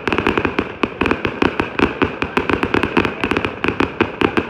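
Fireworks crackling and popping in a rapid, dense string of sharp bangs, many a second.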